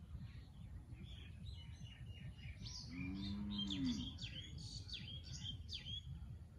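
Small birds chirping in a quick run of short, high, downward-sweeping notes, with a cow lowing briefly about three seconds in, over a steady low rumble.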